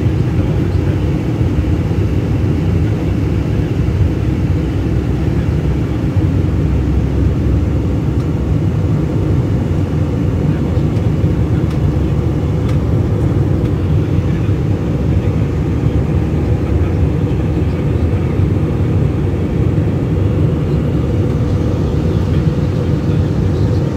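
Jet airliner cabin noise in flight: the steady low rumble of the engines and rushing airflow, heard from a window seat over the wing, with no change in level.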